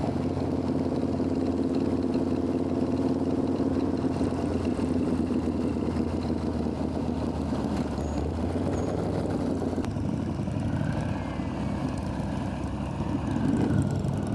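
Motorcycle engine running steadily on the road, with wind noise; the engine note changes about ten seconds in.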